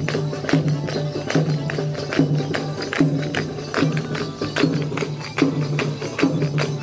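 Folk dance music with a steady beat: sharp, jingling percussive strikes several times a second over a low note repeating about once a second.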